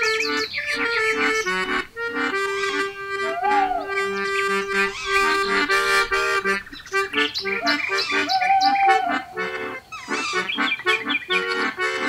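Background music: a quick melody over held notes, with two short rising-then-falling glides, one about three and a half seconds in and one about eight and a half seconds in.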